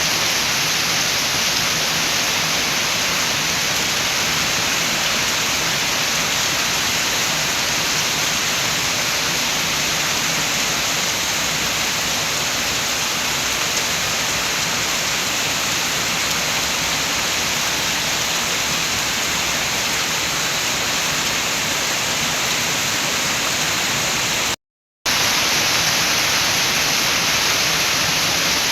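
Steady rain with wind, a dense even hiss. The sound cuts out completely for a split second near the end.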